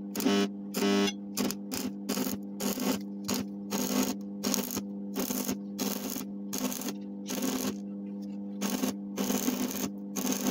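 Stick arc welding on steel: the electrode arc crackles and sputters in irregular bursts over a steady electrical hum, as a wheel rim is welded onto a CNG cylinder as its leg.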